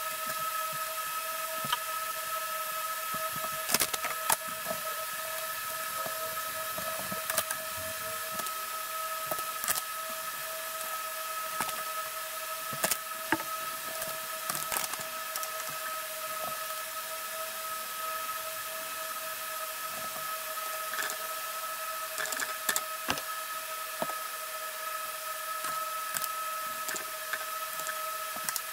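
Scattered light clicks and taps of hand tools (scissors, calipers, a craft knife) and thermal pads being handled on a wooden bench, over a steady high whine.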